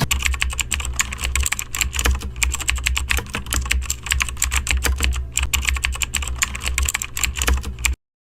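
Fast, continuous typing on a computer keyboard, dense irregular key clicks over a steady low hum, cutting off suddenly near the end.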